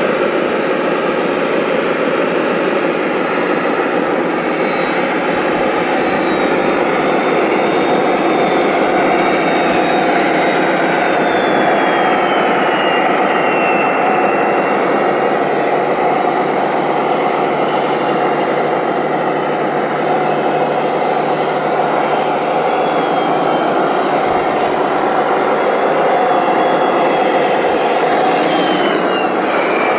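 Radio-controlled construction vehicles running, a steady loud engine-like drone of motors and drivetrains. A thin high whine slides down in pitch twice, about halfway through and near the end.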